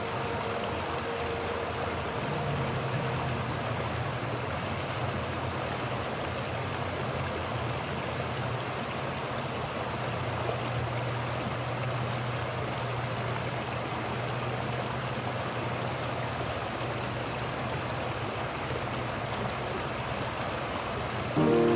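Flowing water rushing steadily, an even hiss of a stream or river, with a faint low steady hum underneath.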